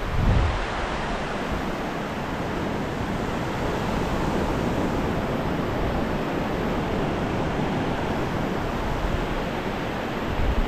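Ocean surf on a beach: a steady rushing of waves, with two brief low buffets, one at the very start and one near the end.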